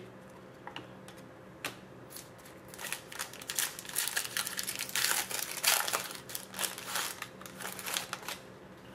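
Crinkling and rustling of hockey card packs and cards being handled: a few isolated clicks, then a dense run of quick crackles from about three seconds in until near the end.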